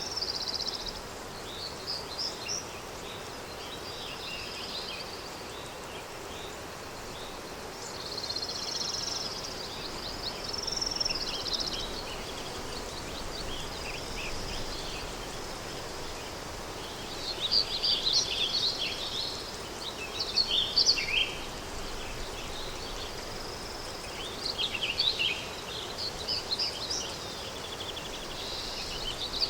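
Countryside day ambience: small birds chirping and twittering in scattered bursts, busiest in the second half, over a steady background hiss of wind.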